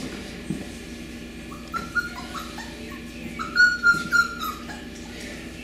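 Beagle puppies whining in short, high-pitched cries, a few scattered ones then a louder run of them about three and a half to four and a half seconds in.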